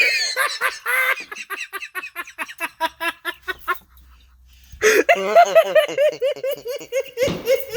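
A person laughing hard in quick repeated bursts: one long run of laughter, a short pause, then another long run.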